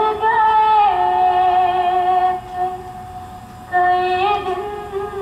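A woman singing two long, held phrases, the first stepping down in pitch, with a break of about a second between them.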